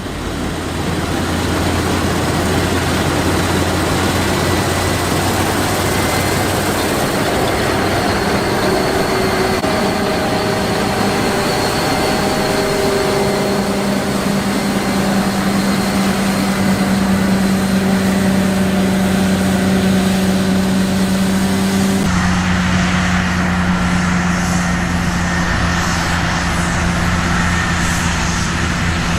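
Heavy diesel engine of wheat-harvest machinery running steadily at constant speed. Its sound changes abruptly about 22 seconds in, then carries on steady.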